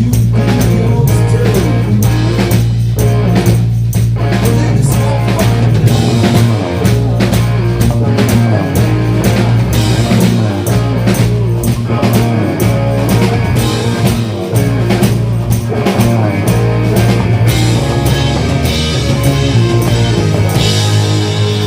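Rock band playing: electric guitar and bass over a drum kit keeping a steady beat.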